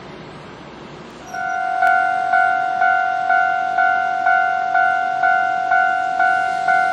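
Japanese railway level-crossing warning bell starting up about a second in and clanging steadily about twice a second, after the fading rumble of a train that has just gone by.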